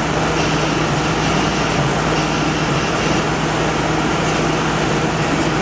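Window air conditioner running, its compressor on: a steady fan rush over an even low hum. The compressor runs nonstop and never cycles off.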